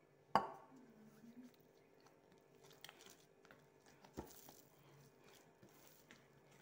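Hands kneading a large ball of soft, sticky dough on a worktop: quiet squishing and slapping, with a sharp thump about half a second in and a smaller one about four seconds in.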